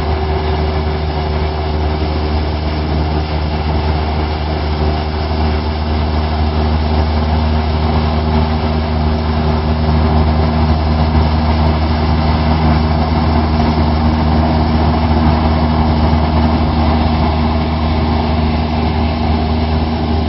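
Airplane engine drone heard from inside the aircraft in flight: a loud, steady, unchanging hum with strong low tones under a constant rushing noise.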